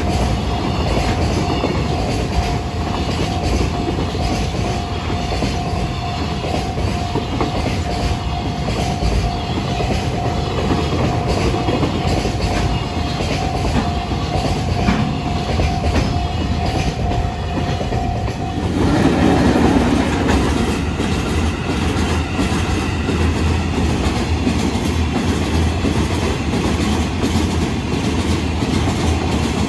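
Freight train of container wagons passing a level crossing at speed: a steady rumble with the wheels clattering over the rail joints, and the crossing's warning bell sounding over it. About two-thirds of the way through, the sound changes abruptly and the bell is no longer heard while the wagons keep rumbling past.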